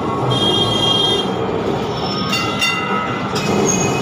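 Kolkata electric tram running, heard from inside the car: a steady rumble of steel wheels on the rails, with high-pitched wheel squeal twice and a few clanks in the second half.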